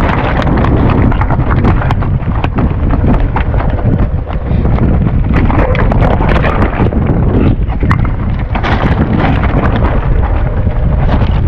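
Strong wind buffeting the microphone, with a continual patter of knocks and rattles over it.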